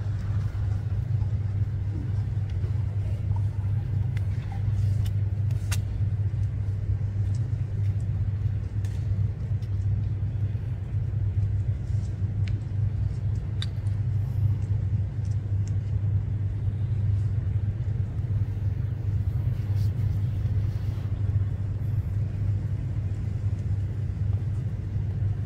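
Steady low rumble with a few faint ticks.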